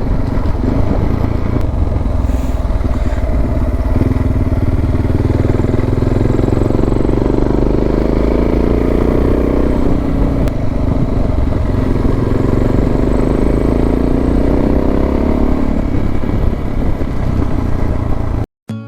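Suzuki DR650's single-cylinder four-stroke engine running under way, its pitch climbing slowly, dropping about ten seconds in, then climbing again. The engine sound cuts off just before the end and acoustic guitar music begins.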